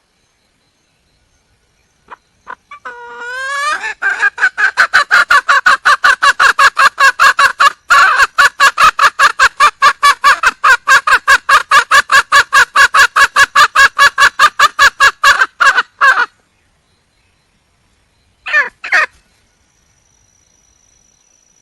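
Red junglefowl hen calling: a few opening notes, then a long, even run of short clucking calls at about four a second lasting some twelve seconds, and two more short calls near the end.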